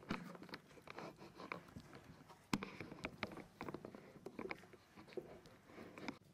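Sphynx mother cat licking and nibbling at a newborn kitten: a faint run of irregular small clicks and smacks from her mouth, with one sharper click about two and a half seconds in.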